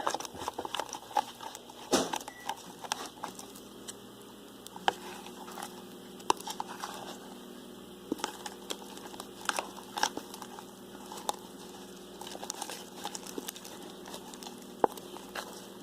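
Plastic spoon stirring thickening slime in a bowl, with irregular light clicks, scrapes and squishes as the glue and shaving cream mixture takes up the borax activator.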